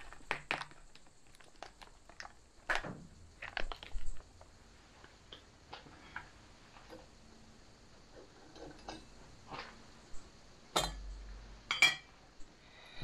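Cookware being handled on a table: scattered light knocks and clicks, then near the end two louder clinks about a second apart as a metal camping mug is set down and its lid taken off and laid on the table.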